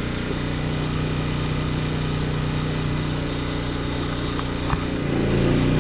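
Champion 4000-watt inverter generator engine running steadily while powering a microwave. A click comes about three-quarters of the way through, and near the end the engine note changes and grows louder as it takes on more load.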